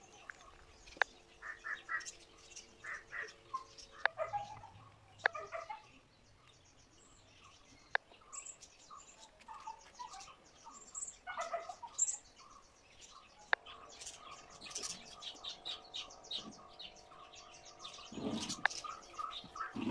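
Small birds chirping and calling, a series of short high tweets scattered throughout, with a few sharp clicks. A faint steady hum joins about two-thirds of the way through.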